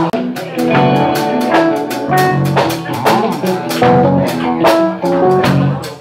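A live band playing: electric guitars and bass guitar over a drum kit keeping a steady beat.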